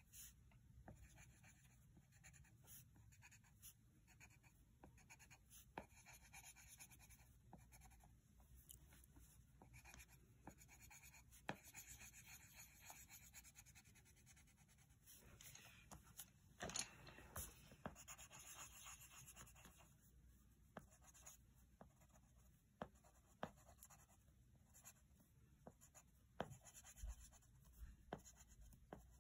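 Faint scratching of a colored pencil writing and drawing on lined notebook paper, with scattered light taps and a louder stretch of strokes a little past the middle.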